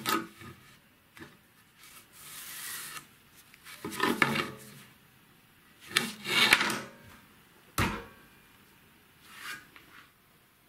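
Wooden boards handled on a metal saw table: a series of separate scraping and rubbing sounds as the wood slides across the top, and one sharp knock late on as a board is set down. The saw is not running.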